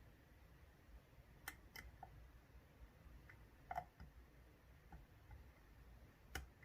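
Faint, sparse small clicks of a dimple pick working the pins of an Ezcurra DS10 dimple euro cylinder under tension, as the pins are probed for the next binder; about seven light ticks spread over an otherwise quiet stretch.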